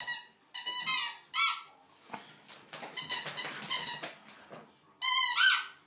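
A squeaky dog toy squeaking again and again as a dog chews it. There are short squeaks in the first second and a half, a quicker run about three seconds in, and a longer squeak that rises in pitch near the end.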